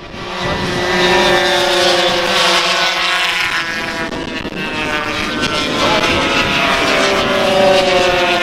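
Classic racing motorcycles running hard at high revs past the track, the engine note falling and rising as they pass and change gear.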